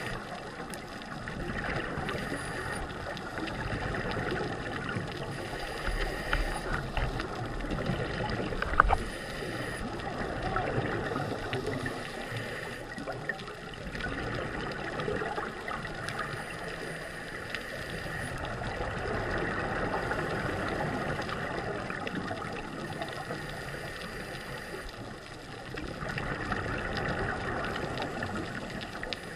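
Scuba regulator breathing with bubbling exhaust, heard underwater. It swells and fades every few seconds, with one sharp knock about nine seconds in.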